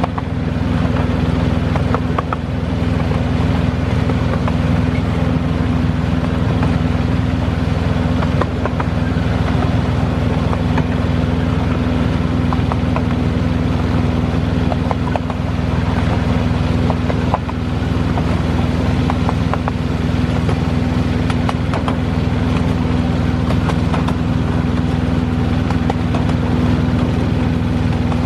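A 7¼-inch gauge miniature diesel-outline locomotive running at a steady speed: a constant engine drone with a steady hum, and now and then short clicks and knocks from the wheels on the track.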